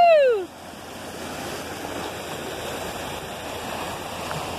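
Steady rushing of a river rapid, water pouring over rocks. In the first half second a person's long yelled 'whoa' slides down in pitch and ends.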